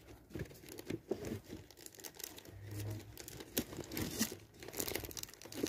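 Rummaging among cutting dies and their plastic sleeves: irregular crinkling and rustling of plastic with small clicks and knocks.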